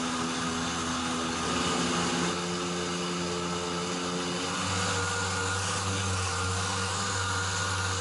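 Random orbital sander running steadily, sanding the gelcoat of a fibreglass kayak to feather out a repair area. Its hum steps in pitch a few times.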